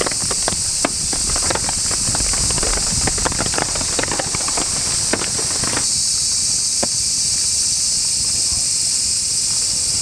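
Heavy rain falling: a steady high hiss, with many sharp close ticks and pattering over the first half that thin out abruptly about six seconds in.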